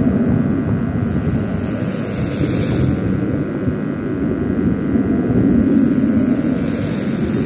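Wind buffeting the microphone: a steady, loud low rumble that rises and falls gently.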